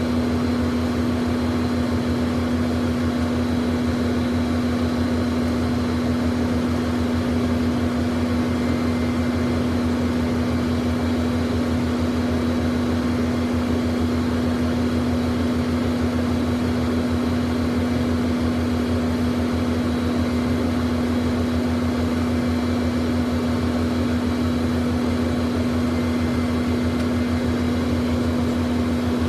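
Learjet's jet engines idling, heard from inside the cabin: a steady, unchanging hum with one strong even tone over a low rumble.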